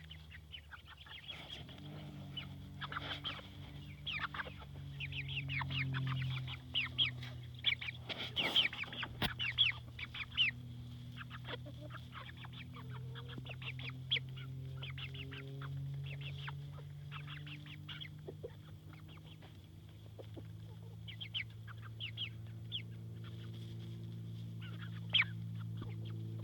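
Fowl clucking, with many short, high chirping calls that are busiest in the first half and pick up again near the end, over a low steady hum. There is a single knock about a third of the way in.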